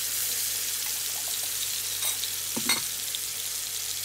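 Marinated mutton chops frying in hot oil in a pan: a steady sizzling hiss, with two sharper pops a little after two seconds in.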